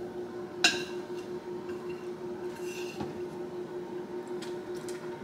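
Spoon scooping stuffing into bell peppers: one sharp clink of the spoon against the glass bowl or pepper, then softer scraping, over a steady low hum.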